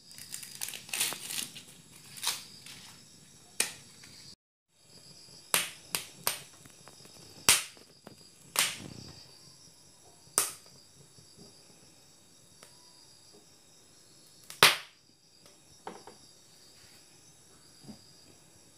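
Kernels of a corn cob crackling in a gas-stove flame: about a dozen sharp, irregular pops and cracks, the loudest about halfway and three-quarters through, over a steady high insect chirring.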